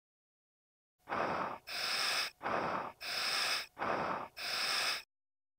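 A scuba diver breathing through a regulator: three breaths in and out, each a pair of hissing sounds, starting about a second in.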